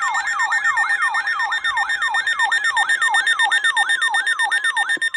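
Weather alert radios sounding their alarm for an incoming severe thunderstorm warning: a siren of quick falling sweeps, about three a second, over a fast-pulsing high beep. The sweeps stop about five seconds in.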